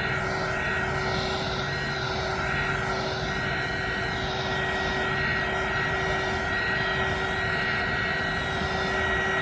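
Heat gun blowing steadily, its fan motor running with a steady high whine over the rush of air, softening the screen's edges for removal.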